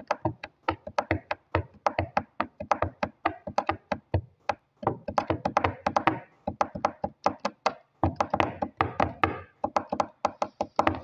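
Rapid, uneven knocks or taps, about four or five a second, with a couple of brief pauses.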